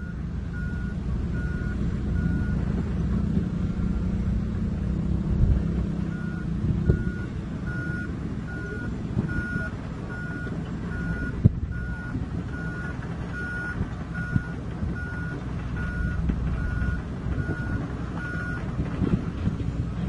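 Komatsu D65PX crawler bulldozer's diesel engine running, with a reverse alarm beeping steadily at a little over one beep a second. The beeping stops for a few seconds after the first couple of beeps, then resumes until shortly before the end. A single sharp clank sounds about halfway through.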